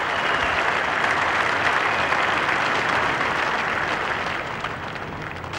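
Large arena audience applauding, a dense steady clapping that starts to fade about four seconds in.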